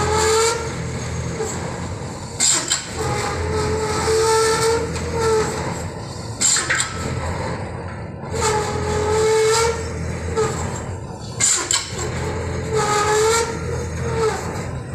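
Machinery on a bridge-piling barge running in a repeating cycle: a whining tone lasting a second or two, with short bursts of hiss between, coming round every four to five seconds.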